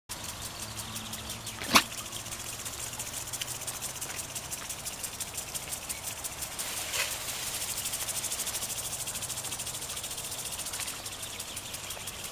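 Insects chirping in a fast, even pulse, with one sharp click a little under two seconds in.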